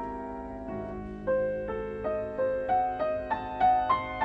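Background piano music: a held chord, then a slow melody of single struck notes, about three a second, climbing in pitch.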